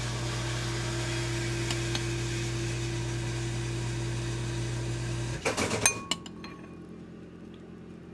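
Household water-supply pump running with a steady hum, then shutting off about five seconds in, followed by a few light clinks. The pump is cycling on and off too often, which the owner thinks means something is wrong with it.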